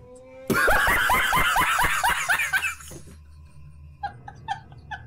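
A man laughing hard: a loud, rapid run of about ten 'ha' bursts starting about half a second in, then a few softer short chuckles near the end.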